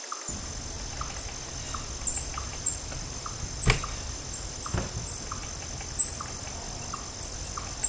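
Outdoor mountain-forest ambience: birds chirping now and then over a steady high-pitched drone, with a single sharp click near the middle.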